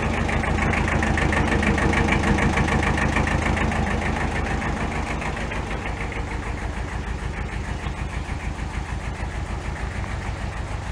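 A small engine running at a steady idle with an even, rapid pulse, a little louder in the first few seconds and then slightly softer.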